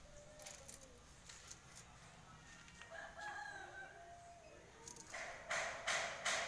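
A rooster crowing once, a little past halfway, with a single drawn-out call. Near the end, a few louder short rasping noises.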